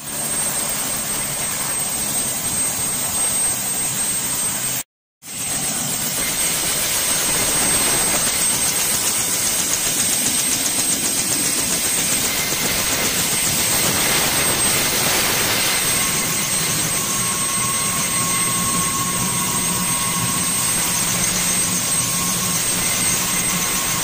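Turbine helicopter running on the helipad: a steady loud rush of rotor and engine noise with a thin, high, steady turbine whine. A lower whine joins about two-thirds of the way through, and the sound cuts out for a moment about five seconds in.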